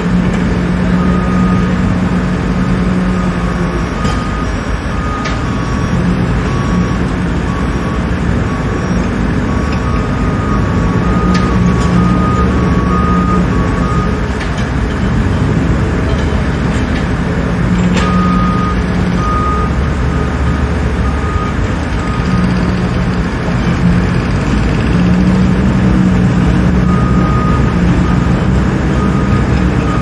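Construction site ambience: heavy truck engines running with a steady low rumble. A reversing alarm beeps in several runs of short repeated pulses, and a few sharp clanks come through.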